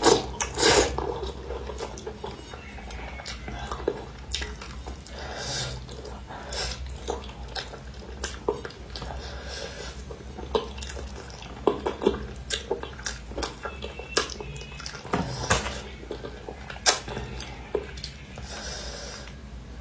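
Eating sounds: utensils clicking and knocking against dishes at irregular moments, with wet mouth sounds from eating spicy soft-shell turtle.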